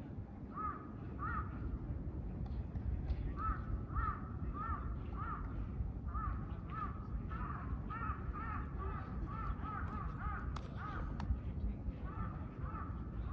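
Crows cawing over and over, short arched caws in loose runs that come thickest a little past the middle, over a steady low background rumble.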